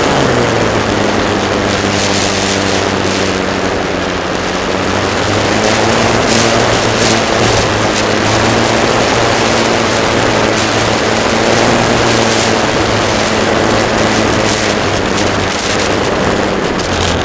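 Onboard sound of a Parkzone F4U Corsair electric RC model in flight: a steady motor-and-propeller hum at part throttle, its pitch shifting slightly now and then, with airflow rushing over the camera microphone.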